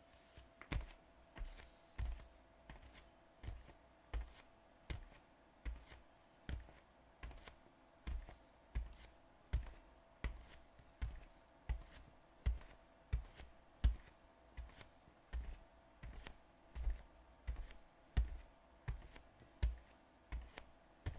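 Bare feet walking on a wooden floor: soft thudding footsteps at an even pace, about one and a half steps a second, each with a light click from the boards.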